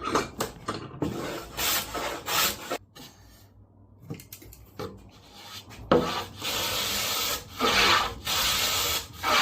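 A hand tool rubbing in repeated strokes along the edges of a plywood drawer bottom, taking a little material off each side so the panel fits. There are several short strokes at first, a pause of a few seconds, then longer, steadier strokes.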